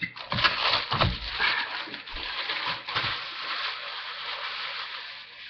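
Clear plastic packaging crinkling and rustling as it is handled, with a few sharp knocks in the first three seconds.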